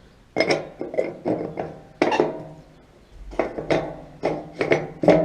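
A series of about a dozen sharp metallic clanks and knocks at irregular intervals, each ringing briefly.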